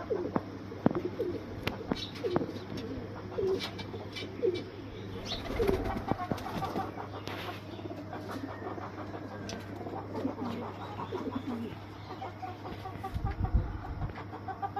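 Domestic Lakha pigeons cooing in short repeated low calls, with scattered sharp clicks and taps among them.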